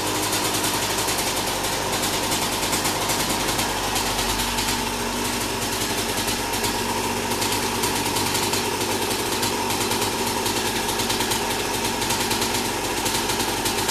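Gas Gas two-stroke enduro motorcycle engine idling steadily.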